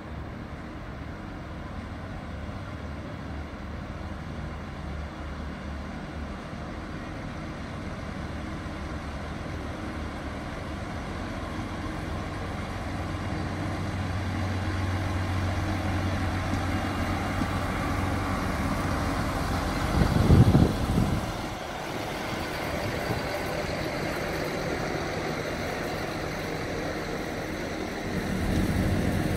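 Network Rail railhead treatment train approaching and passing: a steady low locomotive hum grows louder, with a brief loud rush about two-thirds of the way in as the locomotive goes by, then the wagons rumbling past on the track, louder again near the end.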